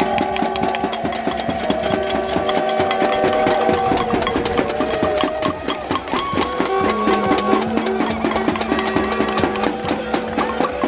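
Live folk music for a Morris dance: a melody of held notes moving step by step over a fast, steady percussive beat.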